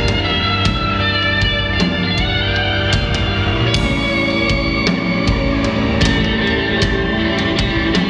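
Live electronic music: sustained tones layered over a steady beat of sharp percussive hits, about two to three a second.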